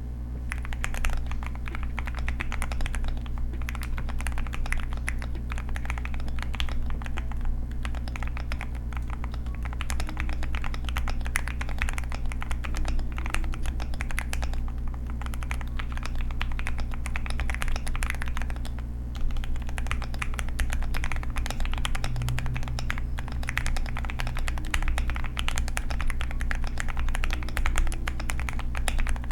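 Continuous fast typing on a QK100 mechanical keyboard with stock Gateron Oil King linear switches and Durock V2 stabilizers: a dense, irregular run of keystroke clacks, over a steady low hum.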